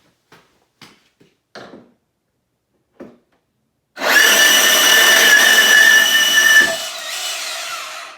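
A few light handling knocks, then a DeWalt DCS374P2 cordless deep cut band saw starts about four seconds in and makes a cut, running loud with a steady high whine. Near the end the sound drops and the saw runs on more quietly before it stops.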